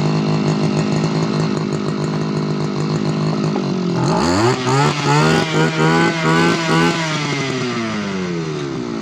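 Tanika 328 Turbo brush cutter's small two-stroke engine idling, then revved up sharply about four seconds in with several quick throttle blips, before dropping back to idle near the end.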